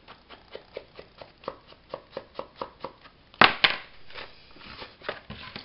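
Brown card flaps being handled and folded by hand: a run of light paper taps, about four a second, then two sharp snaps of card about three and a half seconds in.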